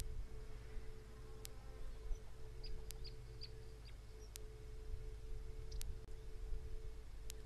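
Outdoor livecam ambience: a steady low hum with two faint steady tones above it, and a sharp tick about every second and a half. A few short, high chirps come in quick succession about three seconds in.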